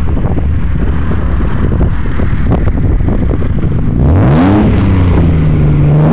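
Nissan 300ZX's V6 exhaust idling with a lumpy note, then about two-thirds of the way through the engine is blipped once: the note rises quickly, falls back and hangs at a raised idle. A second rev begins at the very end.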